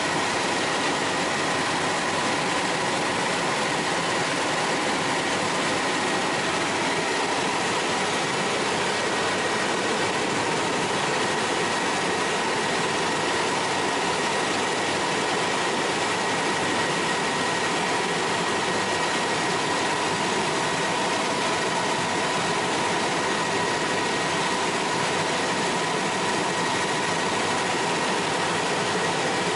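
Bell 206L4 LongRanger helicopter in steady cruising flight, heard from inside the cockpit: a constant rush of turbine and rotor noise with a steady high-pitched whine running through it.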